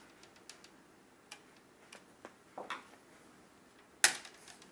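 Small screwdriver working a screw in the plastic screen bezel of an HP laptop, giving light, irregular ticks, then one loud plastic snap about four seconds in as the bezel clicks into place.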